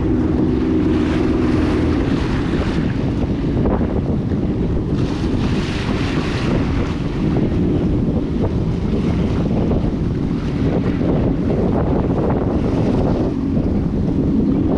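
Jet ski running under way on open water. Heavy wind buffets the microphone over the engine's low drone and the rush of water.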